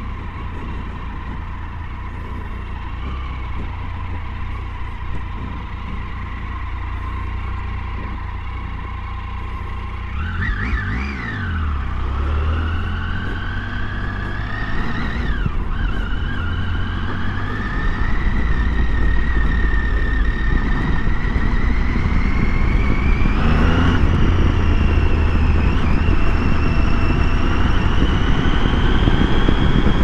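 Triumph Tiger 800's three-cylinder engine running steadily at low speed, then accelerating about a third of the way in: the pitch rises, drops once at a gear change, and climbs again as it gets louder. A low wind rumble on the microphone underneath.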